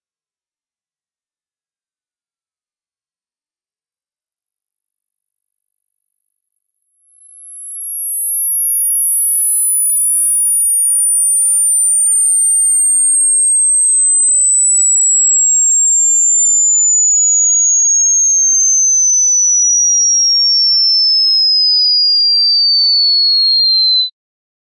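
A single pure test tone for a high-frequency hearing test, sliding slowly and steadily downward in pitch from very high to merely high. It cuts off abruptly about a second before the end.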